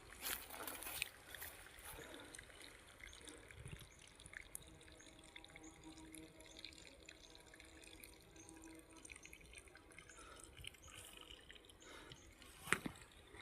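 Water trickling and dripping from the open end of a disconnected water pipeline: faint, with many small irregular drips and a sharper click near the end.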